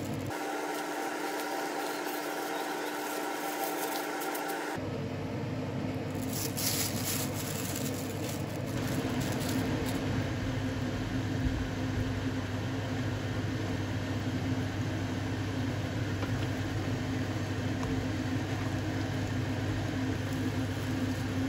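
A steady mechanical hum and whirr of a running kitchen appliance while a pot of hot pot broth cooks on the stovetop, a little louder from about nine seconds in. The first five seconds hold a quieter, different steady hum.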